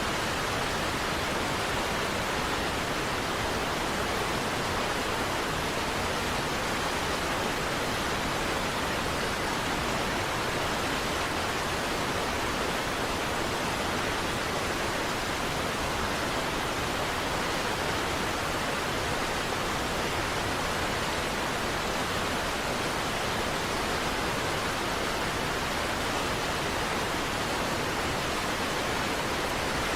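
Steady, unbroken rush of a large waterfall, Niagara Falls.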